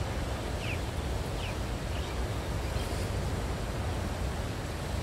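Wind buffeting the microphone out on open water: a steady low rumble with a hiss over it, and a few short, faint chirps in the first two seconds.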